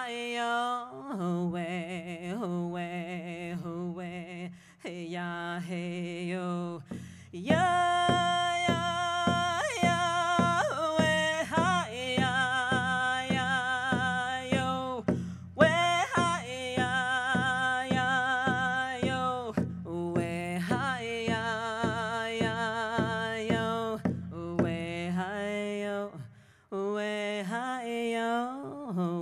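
A woman singing a Chumash children's honoring song, learned in a sweat lodge, with long sliding notes. A steady hand-drum beat joins about seven seconds in and stops near the end.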